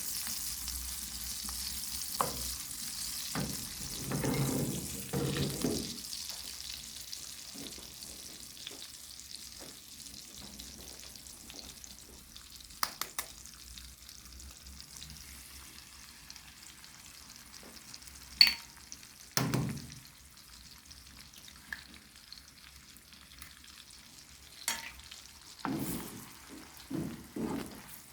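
Food frying in a pan. The sizzle is loudest at first and fades after about six seconds. Short clinks and knocks of a utensil against the cookware come and go, with a sharp click past the middle and a run of knocks near the end.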